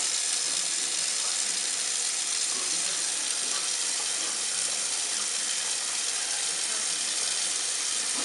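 Kitchen sink faucet running steadily, the stream splashing over a soapy puppy and the hands washing it.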